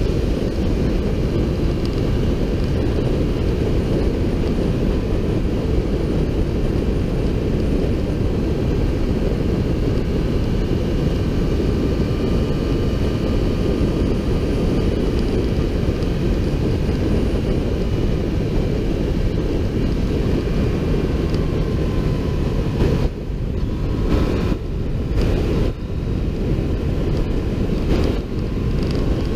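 Motorcycle under way at road speed, heard from a camera on the fairing: heavy wind rush on the microphone over the engine running steadily. The sound dips a few times near the end.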